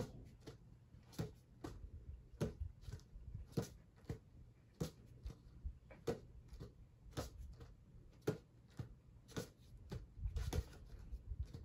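Hands patting and catching a basketball as it is passed around both raised legs, a sharp pat about once a second with softer taps in between, in a steady rhythm.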